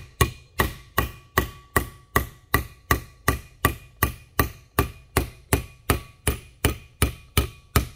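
Ball-peen hammer tapping a steel punch in a steady rhythm of light blows, about two and a half a second, driving the oil seal down into a 1989 Suburban's brake-rotor hub, with a faint metallic ring between blows. The blows are seating the seal fully in its bore.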